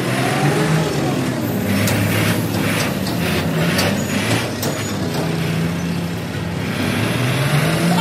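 Kartar Crop Cruiser combine harvester's diesel engine running as the machine drives slowly past, its pitch rising and falling a little. A few sharp clicks and hisses come about two to four seconds in.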